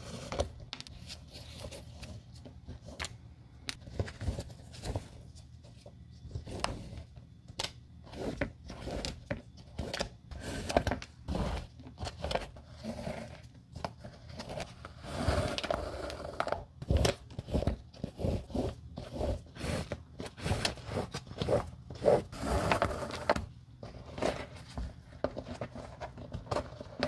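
Flat shoelaces being pulled out through the metal eyelets of a white leather sneaker by gloved hands: a run of short scraping rubs and small ticks, busiest and loudest in the second half.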